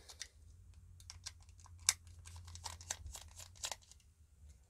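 Small screwdriver turning a screw in a clear plastic nebuliser housing: a string of light clicks and scrapes of metal on plastic, the sharpest a little under two seconds in.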